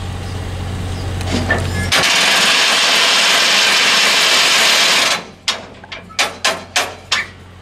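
Compressed air venting from a train's air brakes: a loud hiss starts suddenly about two seconds in, lasts about three seconds and cuts off, then comes a run of about seven short puffs, three or four a second. A steady low hum runs underneath before the hiss.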